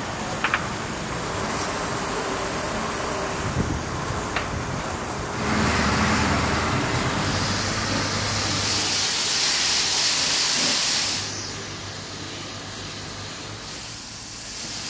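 Pressure washer spraying water across a felt flat roof: a steady hiss of spray that grows loudest from about 5 to 11 seconds in. A steady low engine hum runs underneath, and there are a couple of light clicks in the first few seconds.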